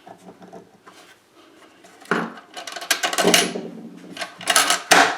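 Workshop handling noise from the wooden box and its small metal hardware: a knock about two seconds in, a run of clicking and rattling, then two sharp knocks near the end.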